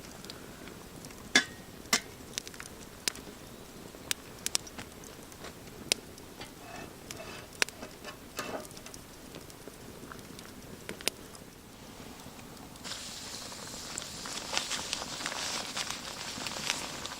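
Campfire crackling, with scattered sharp clicks and pops. About thirteen seconds in, a steady frying sizzle starts suddenly in a hot pan over the fire and grows a little louder toward the end.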